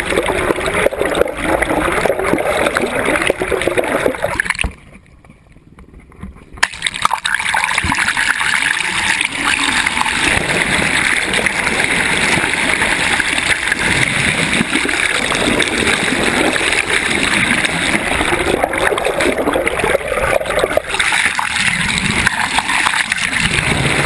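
Water rushing and splashing around a camera held at the waterline under a moving sailboat's hull, with a quieter spell lasting about two seconds roughly five seconds in.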